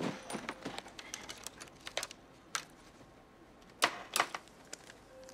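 Scattered light clicks and taps of a laptop keyboard, with a few sharper clicks between about two and four seconds in.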